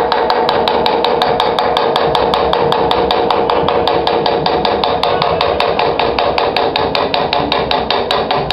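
Small hammer tapping a hand-engraving chisel into the steel of a machete blade clamped in a vise: rapid, even metallic strikes, about seven a second, with the blade ringing between them. The strikes stop just after the end.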